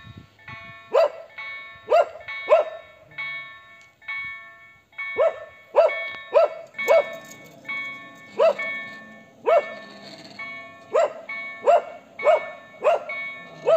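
Dogs barking again and again, loudest, over the steady ringing tone of a railway level crossing's EDE1 electronic warning bells, which are quiet.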